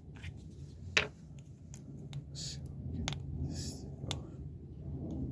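Pot of acrylic paint being handled and opened: a sharp click about a second in, then a few short scrapes and fainter clicks.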